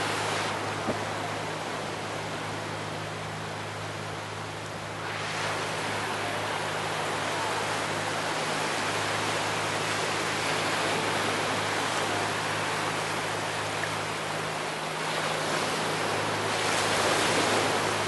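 Small waves washing in over a flat sandy beach, a steady hiss of surf that swells about five seconds in and again near the end.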